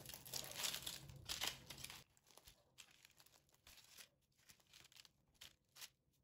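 Crisp, flaky crust of a freshly baked layered çörek crackling as it is torn apart by hand: dense crackling for about two seconds, then scattered faint crackles.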